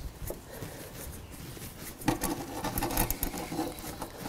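Hands twisting the threaded plastic lock ring collar of an IP68 weatherproof wiring connector on a braided harness: small rubbing and clicking, busier from about halfway through as the collar is tightened down.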